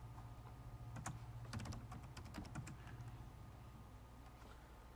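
Faint computer keyboard keystrokes, a scattered run of clicks mostly in the first few seconds, over a low steady hum.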